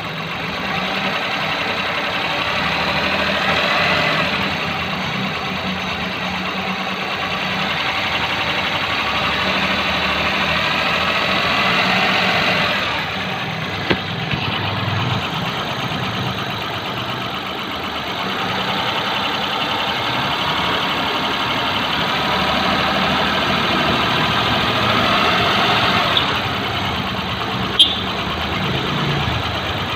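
Maruti Suzuki 800 MPFI three-cylinder engine running with both drive belts removed, given light throttle a few times, swelling briefly around 4, 12 and 26 seconds in. The timing-side noise it showed earlier is not heard, which points to the AC belt drive as its source. A sharp click sounds near the end.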